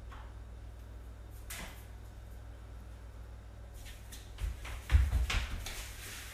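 A faint click, then a quick cluster of knocks and thumps about four and a half seconds in, over a steady low hum.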